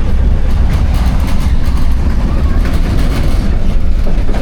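Tram running along its line, heard from inside the car: a loud, steady low rumble with light rattling.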